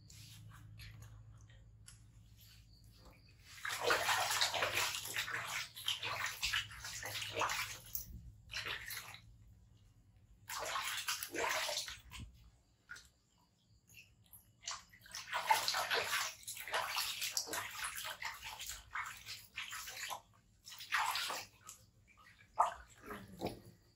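Water sloshing and splashing in a plastic basin as hands wash two baby monkeys, in irregular bouts of a few seconds with quieter gaps between.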